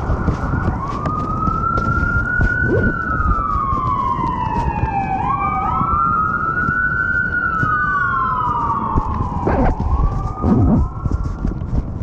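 A siren wailing, its pitch rising and falling in slow sweeps of a few seconds each, over a steady low rumble. A couple of short thumps come near the end.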